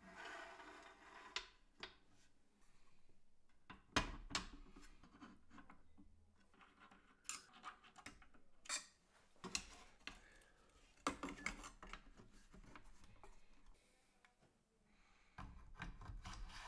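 Faint assembly handling sounds on an aluminium laser-engraver frame: scattered metallic clicks and knocks as parts are set in place, a screwdriver driving screws, and soft rubbing of hands on the metal, with a sharper knock about four seconds in.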